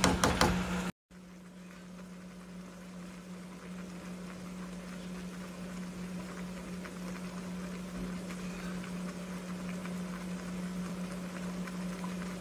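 Yogurt sauce with chicken simmering in a pan, a soft bubbling with faint scattered pops that grows slightly louder, over a steady low hum.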